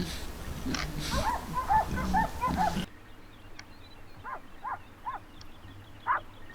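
Hunting dogs barking and yelping in quick runs of short calls. The sound drops abruptly about three seconds in, after which fewer, fainter barks come.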